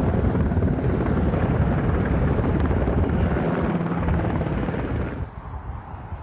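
Strong gusty wind buffeting the microphone, a loud rough rumble that eases off about five seconds in.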